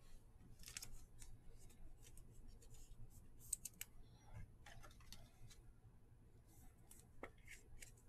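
Faint, scattered clicks and rustles of a stack of trading cards being handled and flipped through by hand.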